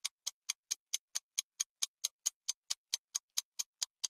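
Countdown-timer ticking sound effect: quick, evenly spaced clock-like ticks, about four or five a second.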